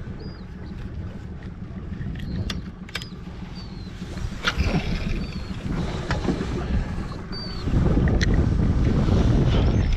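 Wind buffeting the microphone and water lapping against a small boat's hull, with a few light handling clicks and some brief faint high chirps. The wind rumble gets louder about three-quarters of the way through.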